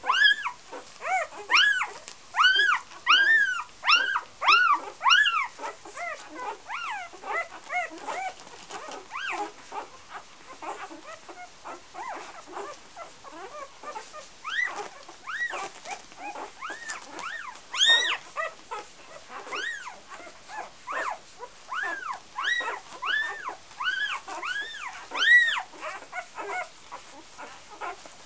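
Newborn golden retriever puppies squealing and whimpering: a rapid run of short, high cries that each rise and fall, about two a second, easing off for a while in the middle before picking up again.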